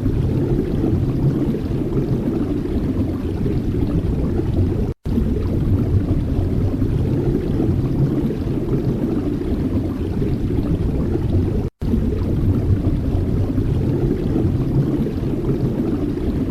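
Steady low rumbling noise with no distinct tone, cut off briefly twice, about five seconds in and near twelve seconds.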